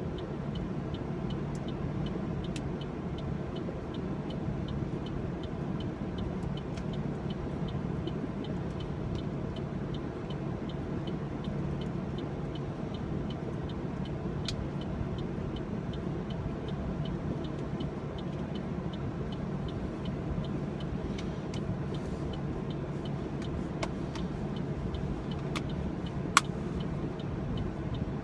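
Car engine idling steadily, heard from inside the cabin, with a light regular ticking about two to three times a second and one sharp click near the end.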